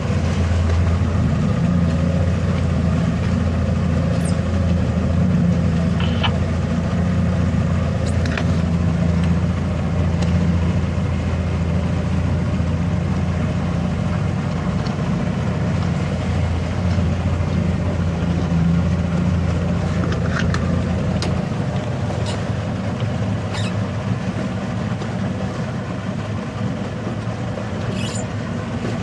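Boat engine running steadily underway, a low drone that eases slightly about three-quarters of the way through.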